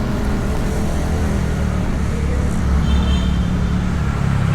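Steady engine, tyre and wind noise from a Honda Beat single-cylinder automatic scooter under way, picked up by a camera mounted on the bike.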